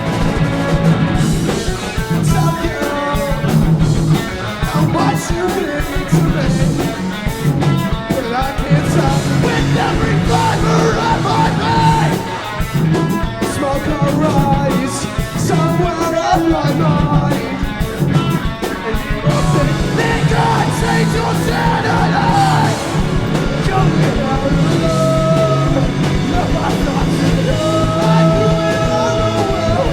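Live rock band playing a punk-leaning song: electric guitars, bass and drums, with singing over them.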